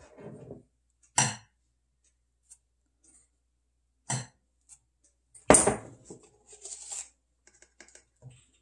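Kitchen utensils and dishes being handled: three separate knocks and clinks, the loudest a little past halfway, followed by about a second of scraping and rustling.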